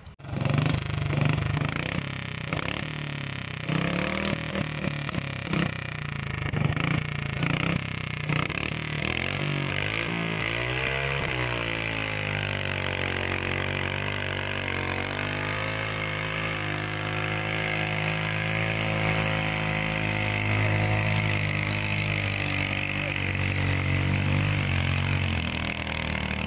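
Competition garden tractor's engine running hard at high revs while dragging a weight-transfer pulling sled. It runs uneven at first, then about ten seconds in the pitch dips and climbs back, and it holds a steady high note after that.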